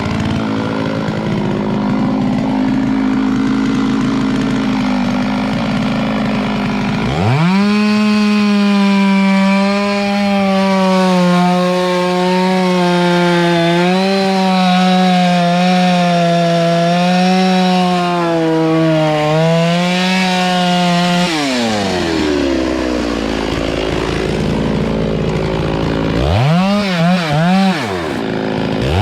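Two-stroke chainsaw running at a low speed, then revving up to full throttle about seven seconds in. It holds there for about fourteen seconds with the pitch wavering as it cuts through the tree's wood, then drops back down. Two quick throttle blips come near the end.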